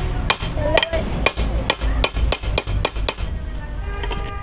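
Metal-on-metal blows on a truck's tie rod end resting on a wooden block: about nine sharp strikes in quick succession, then lighter clinks of a spanner near the end.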